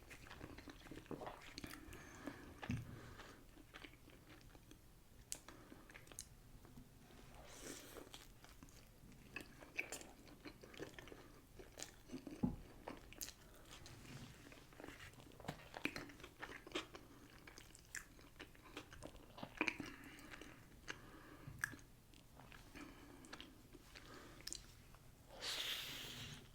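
Close-miked biting and chewing of a soft bean and rice burrito: quiet wet mouth sounds with irregular small clicks and crunches. There is a louder rustling burst near the end.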